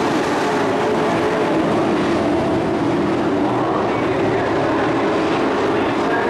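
Pack of dirt-track race trucks running on the oval, their engines blending into one steady, loud drone with no let-up.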